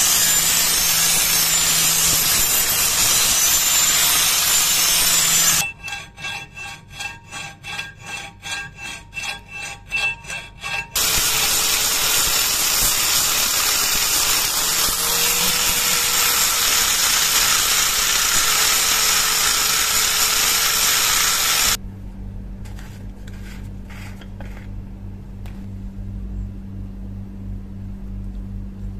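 Angle grinder with an abrasive disc grinding the steel of a rusty shovel blade and its socket, a loud steady grinding. It breaks off for about five seconds of rhythmic rubbing strokes, two or three a second, and in the last several seconds gives way to a quieter low steady hum.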